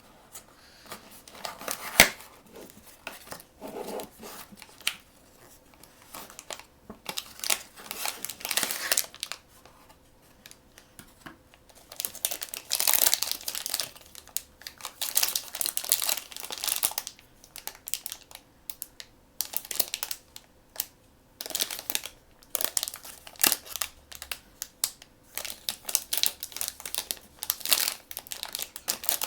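Packaging crinkling, rustling and tearing in irregular bursts as blind bags and boxes are opened by hand, with one sharp click about two seconds in.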